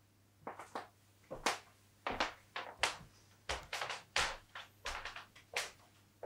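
Footsteps of a man in shoes walking away across a wooden floor: a run of short, irregular taps and thuds, often in close heel-and-toe pairs.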